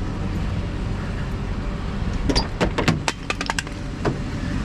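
Vehicle engine running with a steady low hum; about halfway through, a quick run of about eight sharp clicks or rattles.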